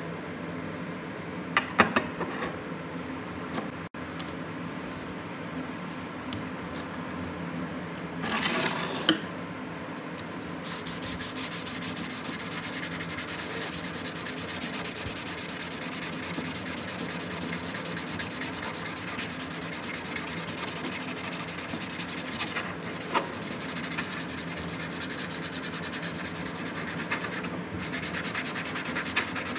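Steel chisel blade being rubbed by hand with an abrasive, a steady scratching of quick back-and-forth strokes that starts about ten seconds in and pauses briefly twice. Before that there are a few light knocks and a short burst of rubbing.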